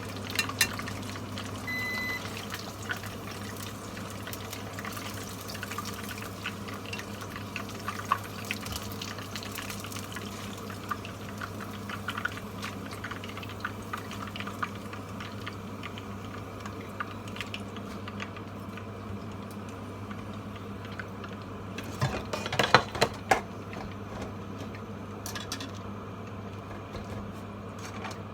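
Chicken pieces deep-frying in hot oil, with a continuous scatter of small crackles and pops. A steady low hum runs underneath. About 22 seconds in comes a short burst of louder clicks and knocks.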